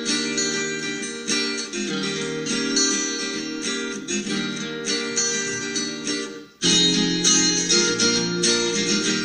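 Acoustic guitar strumming an instrumental passage with no singing. The music drops out for a moment about six and a half seconds in, then comes back louder.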